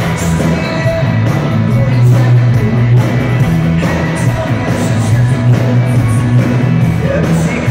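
Live rock band playing loud, with electric guitars, bass and drums, heavy in the low end as heard from within the crowd.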